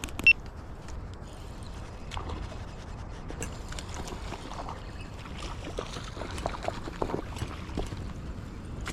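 Steady rush of river water with small splashes and clicks while a hooked small brown trout is reeled in. There is one sharp knock just after the start.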